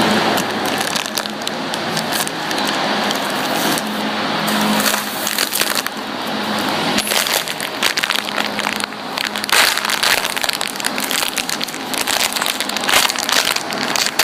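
Foam squishy toys being squeezed and handled close to the microphone: a continuous crackling, crunching rustle full of small clicks.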